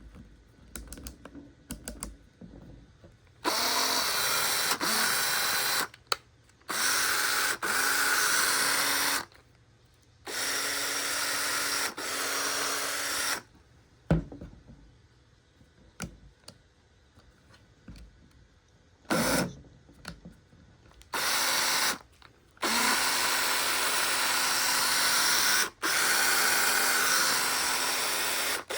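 Makita DF030D cordless driver drill run in about six short bursts, each a steady motor whir lasting one to three seconds. The bursts are separated by clicks and knocks from handling, with a longer pause in the middle. The seller lists the drill as still having an abnormal noise after being stripped, cleaned and regreased.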